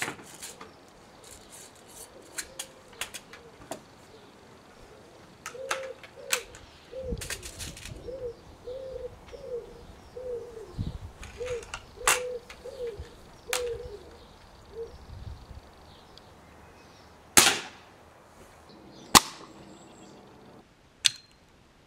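Break-barrel air rifle being handled and cocked, with scattered clicks and knocks, while a pigeon coos repeatedly in the background. Near the end come three sharp cracks about two seconds apart: the air rifle firing and pellets striking plasterboard targets.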